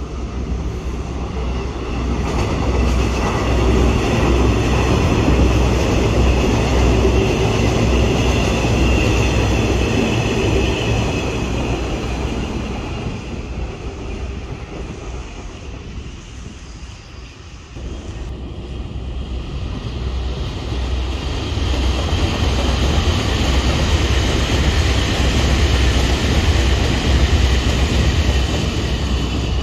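Taiwan Railway electric multiple-unit trains rumbling past on a concrete viaduct, with a high steady tone over the wheel-on-rail rumble. One train passes, the noise dips a little past halfway, then a second train passes.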